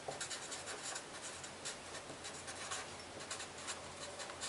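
Felt-tip marker writing words on a sheet of paper: a quick, irregular series of faint scratchy strokes.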